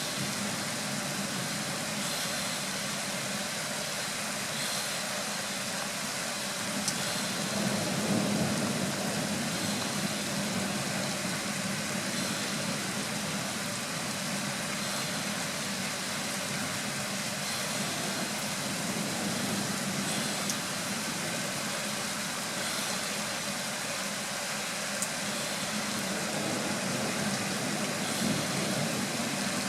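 Steady hiss of rain in a summer thunderstorm, with a low rumble of distant thunder swelling about eight seconds in and again near the end.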